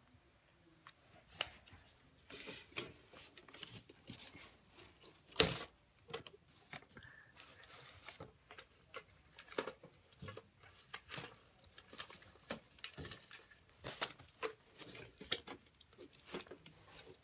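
Small toy doll-food items being handled and rummaged through, with irregular light clicks and rustles and one sharper knock about five seconds in.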